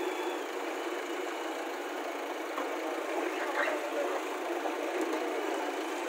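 JCB backhoe loader's diesel engine running steadily.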